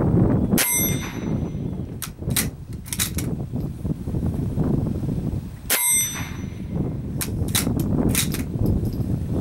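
Two shots from a Remington Model 34 .22 LR bolt-action rifle, about five seconds apart, each followed by a short metallic ring. After each shot come four quick metallic clicks as the bolt is worked to eject the case and chamber the next round.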